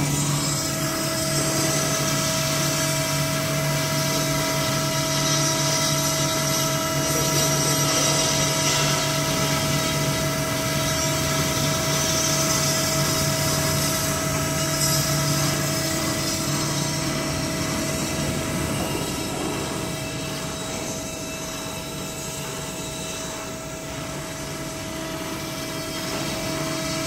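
CNC stone engraving machine's spindle running steadily as its router bit carves a scroll pattern into a stone slab, a steady whine over grinding noise. It drops a little in level for a few seconds late on, then comes back up.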